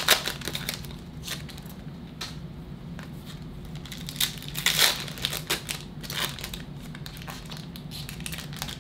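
Foil wrapper of a Topps Chrome trading-card pack crinkling as it is handled and opened, with cards rustling in hand; irregular crackly rustles, loudest right at the start and about five seconds in.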